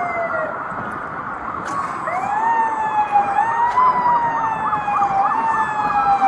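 Emergency vehicle sirens wailing, the pitch sweeping slowly up and down, with a quick warble of about five cycles a second for a second or so midway.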